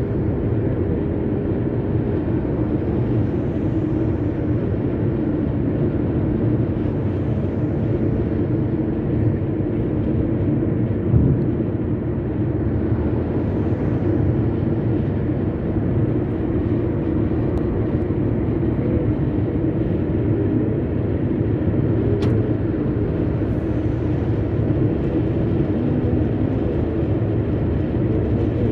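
Steady road and engine noise of a car cruising at highway speed, heard from inside the car. Other vehicles swell past now and then, and there is a single short thump about eleven seconds in.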